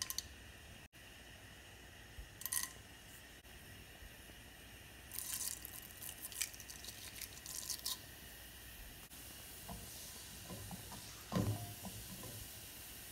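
Whole spices sizzling in hot oil and ghee in a pot, with a faint steady hiss. Short crackles come as spices are dropped in, then a spell of crackling and spluttering about five to eight seconds in as cumin seeds hit the hot oil. A dull knock about eleven seconds in is the loudest sound.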